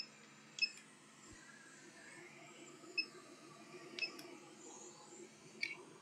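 Soldering station giving about four short, high electronic beeps spread out over a few seconds, with faint clicks, as its temperature is set to 340 degrees.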